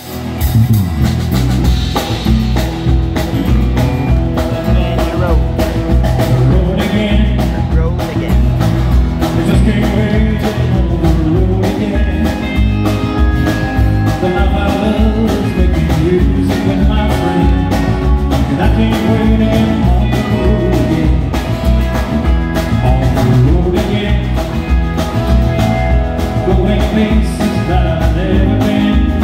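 Live country band playing through a PA, with a drum kit keeping a steady beat under electric guitars, bass and acoustic guitar.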